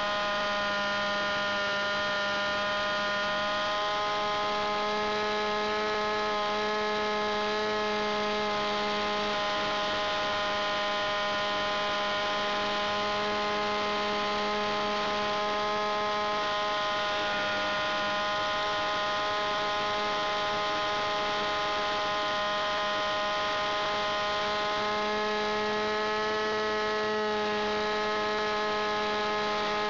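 Fuel-burning engine of a radio-controlled aerobatic model plane running in flight, a steady, even drone heard from on board the model.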